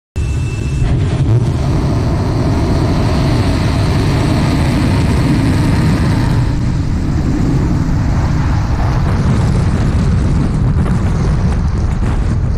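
Long March 7 rocket's kerosene-oxygen engines at ignition and liftoff, heard close to the launch pad: a loud, deep, steady rumble that starts abruptly, with a brief high tone in the first second.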